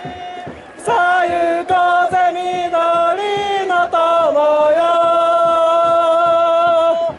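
A large crowd of football supporters chanting a song in unison, in long held notes with a few changes of pitch, after a short quieter moment at the start.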